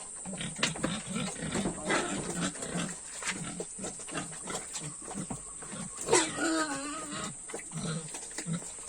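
Pigs grunting and chomping feed, a steady run of short, irregular low grunts and clicks, with one longer, higher call about six seconds in.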